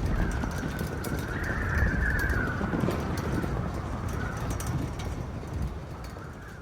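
Wind howling: a low buffeting rumble with a wavering whistle that rises and falls, fading near the end.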